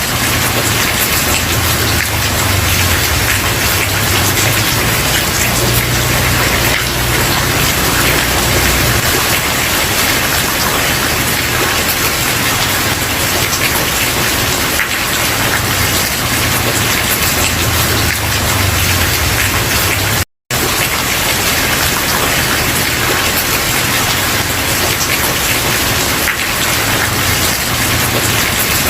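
Steady, loud rain falling on a wooden porch, under a low rumble that swells and fades several times. The sound cuts out to silence for a split second about two-thirds of the way through.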